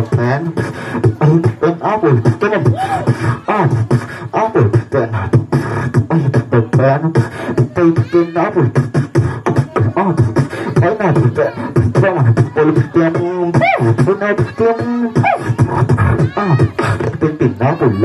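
Human beatboxing through a handheld microphone and PA speakers: fast, rhythmic mouth-made kicks, snares and clicks layered with hummed, pitched bass lines, with a few vocal pitch sweeps in the second half.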